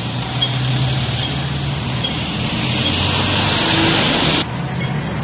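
Street traffic with a bus passing close by, its engine running under a steady wash of road noise, and a faint high beep repeating about once a second. A rising hiss builds and cuts off abruptly about four seconds in.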